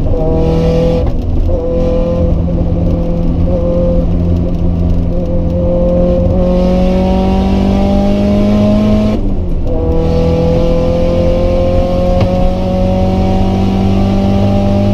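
Nissan SR20DET turbocharged four-cylinder pulling hard under load inside the car's cabin, its pitch climbing steadily as the revs rise. About nine seconds in the revs drop sharply at an upshift, then the engine climbs again in the next gear.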